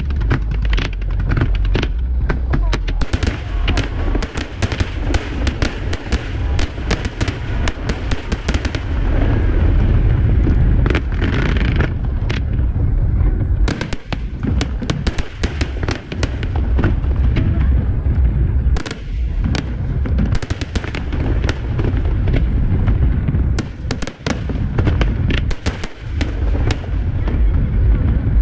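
Aerial fireworks show going off in a dense, continuous barrage: rapid sharp bangs and crackling over a deep booming rumble, with no let-up.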